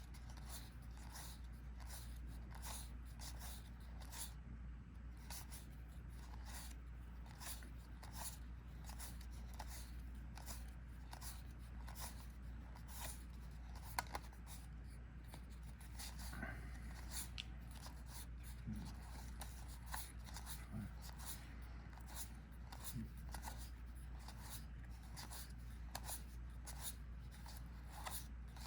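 Trading cards being handled and laid down one at a time, light papery clicks about twice a second, with one sharper click near the middle over a low steady hum.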